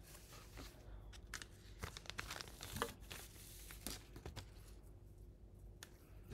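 Faint crinkling and rustling of synthetic flash material (lateral scale and hollow flash strands) being handled and pulled apart, in irregular small crackles.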